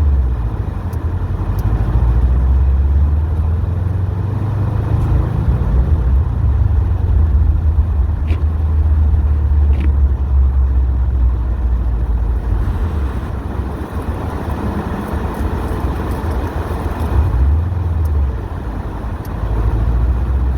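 Subaru WRX STI's turbocharged flat-four engine running steadily under way, a low, even drone with a brief dip in the engine note near the end.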